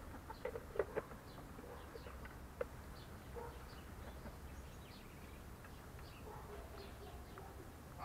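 Hens feeding on scattered feed close by, with quiet clucking and a few sharp pecking taps, most of them in the first second.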